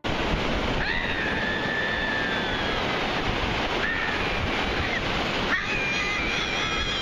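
Surf breaking on the beach with wind buffeting the microphone, a steady rushing noise. Over it, a high voice cries out in three long held cries, the first about a second in.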